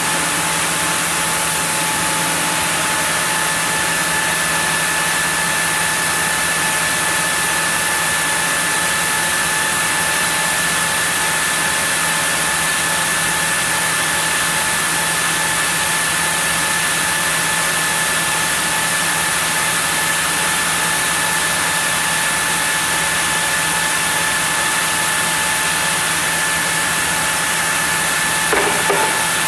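Sawmill saw running steadily while sawing a zelkova block: a constant machine hum with a steady high whine over it. There is a short knock near the end.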